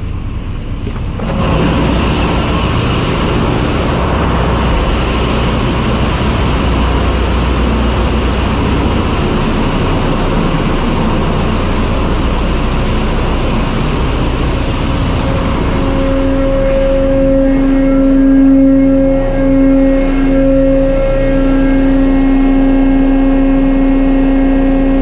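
Loud, steady machinery din of a ship's engine room, cutting in suddenly about a second in as the door from the control room opens. In the second half a strong, steady low hum joins it and drops out briefly twice.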